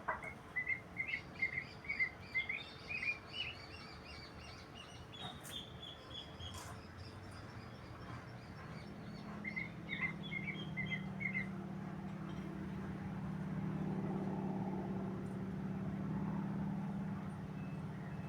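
A bird chirping in runs of short, quick, high notes, first for about five seconds, then again briefly near the middle. A low steady hum comes in from about nine seconds in and carries on under the rest.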